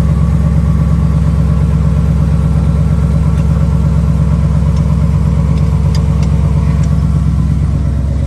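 Off-road wrecker's engine idling steadily, with a few light clicks about six seconds in.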